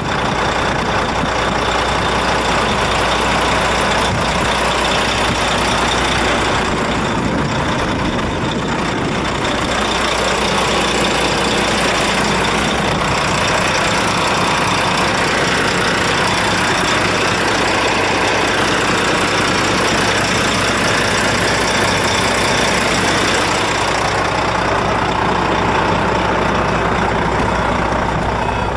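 Volvo FH 440 truck's 13-litre straight-six diesel engine idling steadily.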